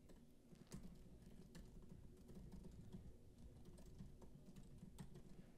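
Faint typing on a computer keyboard: irregular key clicks as a long command is typed.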